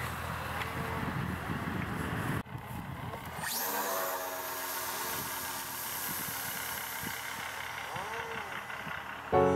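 Wind rumbling on the microphone, then after a cut the electric motor and propeller of an F5J RC glider start up about a third of the way in with a sharply rising whine and run steadily at climb power. Music comes in right at the end.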